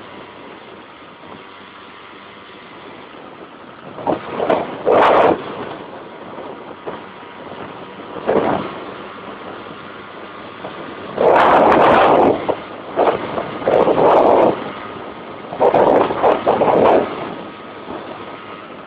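Steady running noise of a car on the road, with loud distorted bursts over it several times, the longest lasting over a second about halfway through.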